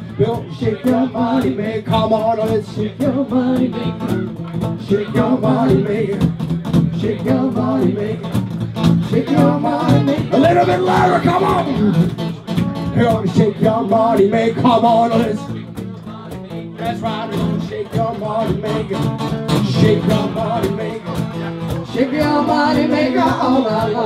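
Live acoustic blues duo: strummed acoustic guitar and a cajón beating out a steady rhythm, with singing over them.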